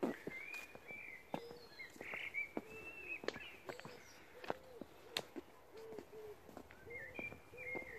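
Footsteps crunching on the stone ballast and wooden sleepers of an overgrown disused railway track, with birds singing and calling from the surrounding trees.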